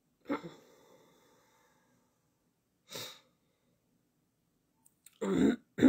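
A woman breathing through her nose, with a short puff of breath about three seconds in and a brief voiced sound, like a hum, near the end.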